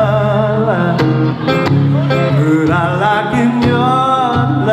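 Live music: singing over strummed acoustic guitar with a steady low accompaniment.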